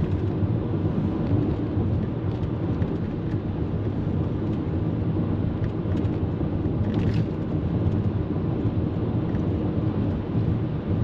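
Car driving along, heard from inside the cabin: a steady rumble of engine and road noise.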